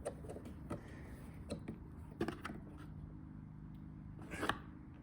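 A few scattered clicks and short metallic creaks from a screw extractor being turned in a broken bolt in a Yamaha YZ250 subframe, the bolt beginning to loosen. The sharpest click comes about four and a half seconds in, over a low steady hum.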